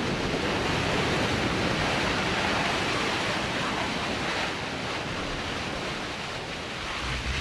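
New Shepard booster's BE-3 hydrogen-oxygen rocket engine firing in its landing burn as the booster descends to touchdown: a steady rushing noise that eases slightly about halfway through.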